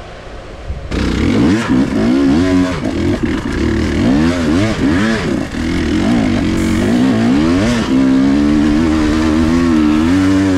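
Trail dirt bike engine revving hard, the throttle opened and closed again and again so that the pitch swings up and down, then held at a steadier high pitch near the end. The engine comes in suddenly about a second in.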